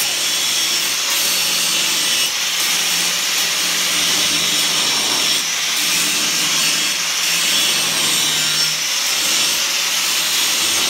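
Hand-held power grinder running continuously against steel, a steady high-pitched grinding noise.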